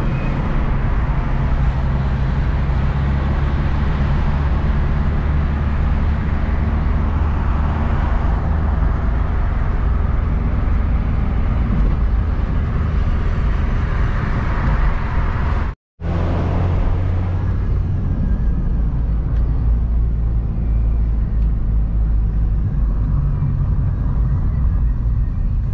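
Steady road noise inside a moving car's cabin: low engine and tyre rumble with a wash of wind and road hiss. It cuts to silence for a split second about sixteen seconds in, and the hiss is lighter after the break.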